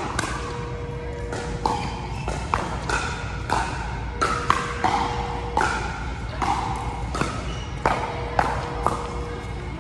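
Pickleball rally: a steady run of sharp pops from paddles striking the hollow plastic ball, along with its bounces on the court, one or two a second. Each pop rings briefly and echoes in the large hall.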